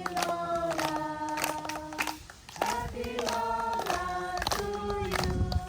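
A group of people singing together in long held notes, with a short pause for breath about two seconds in before the singing resumes.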